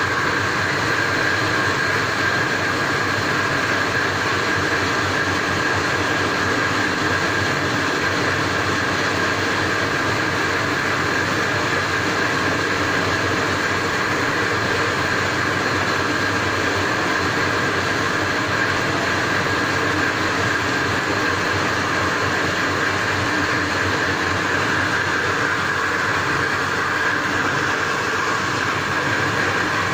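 Steady loud mechanical drone with a faint high whine running through it.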